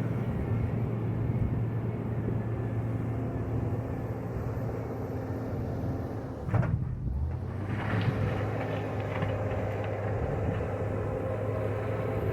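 JCB 426ZX wheel loader's diesel engine running steadily under work, with a brief knock about six and a half seconds in, after which the engine note picks up again.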